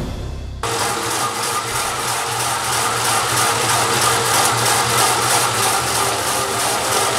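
Holac Cubixx vegetable cutting machine running: its motor and spinning cutting disc make a steady, dense whirring hum as vegetables are shredded against the blades. The sound starts suddenly about half a second in.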